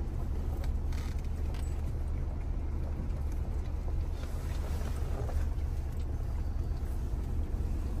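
A vehicle driving slowly, a steady low rumble of engine and tyres.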